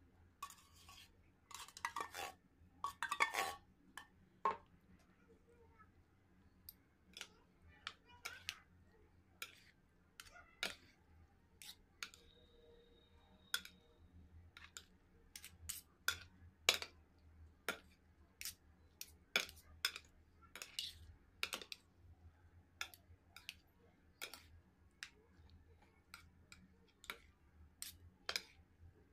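Metal spoons clinking and scraping against a dish while stirring macaroni salad: sharp clinks about once or twice a second, with a few longer scrapes near the start as canned fruit is spooned in.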